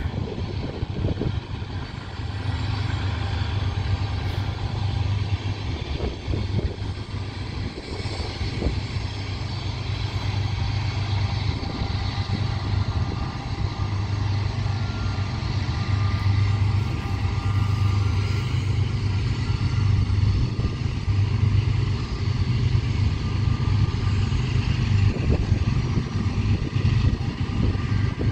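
Diesel locomotives of a freight train working upgrade: a steady low engine drone that swells and eases in slow waves, with a light hiss over it.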